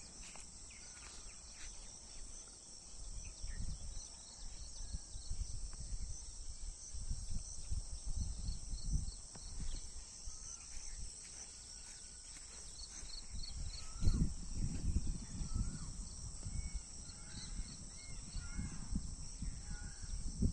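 Outdoor ambience: a steady, high insect drone with short bird chirps that grow more frequent in the second half, over an uneven low rumble.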